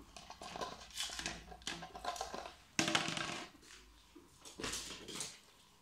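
Irregular scratchy clicks and rustles of a pet squirrel's claws scrabbling and scampering across a hard floor, loudest about halfway through.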